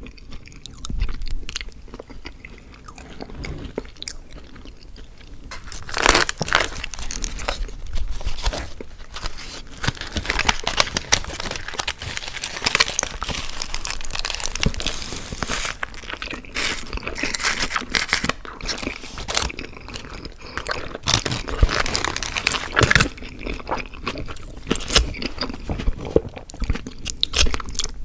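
Close-miked chewing with crunchy bites: mouth sounds of someone eating. It is sparse for the first few seconds, then dense crunching and chewing from about six seconds in.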